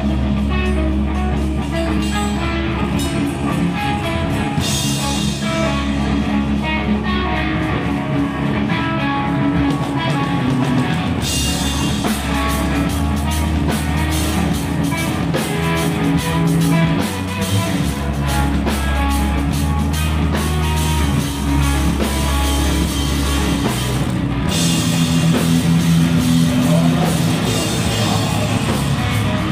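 A stoner rock band playing live: electric guitar, bass guitar and a drum kit, with the cymbals coming in heavier about eleven seconds in and again near the end.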